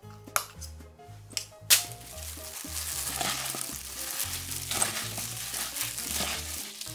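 Hand in a plastic glove mixing raw chicken with a thick red pepper marinade in a stainless steel bowl: a dense, continuous crackle that starts about two seconds in. Before it come a few sharp clicks of a spoon scraping the marinade out of a glass bowl.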